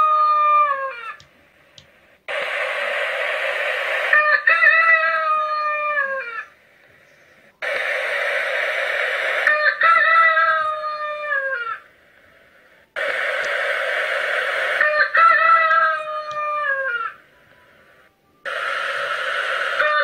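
Rooster crowing again and again, about every five seconds. Each crow is a harsh, noisy opening followed by a long drawn-out call that falls in pitch at the end, with a second or so of silence between crows.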